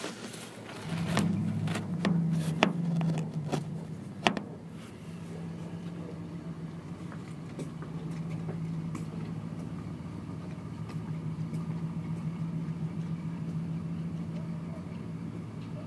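Motorcycle engine idling steadily, a little louder over its first few seconds. Several sharp knocks and rustles in the first four seconds.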